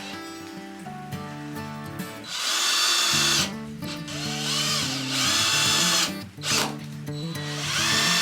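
Power drill run in short bursts of about a second each, three times, its pitch rising as it speeds up and falling as it slows, over background music.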